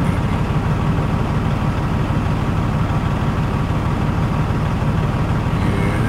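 Semi-truck diesel engine idling steadily, heard from inside the cab.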